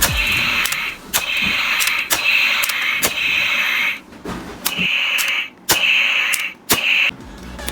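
Electronic sound effect of a toy western-sheriff rifle through its small built-in speaker: a run of about seven tinny, hissing bursts, each under a second long with short gaps between them, and sharp clicks in between.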